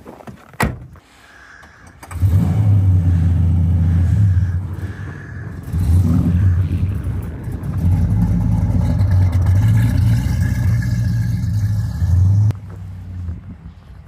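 Car engine running loud and low, its level rising and falling for about ten seconds before cutting off suddenly near the end. A single sharp knock comes just under a second in, before the engine sound starts.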